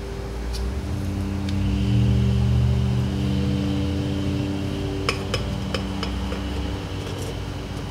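Steady machine hum in a workshop. A few light metal clinks about five to six seconds in, from tools and engine parts being handled.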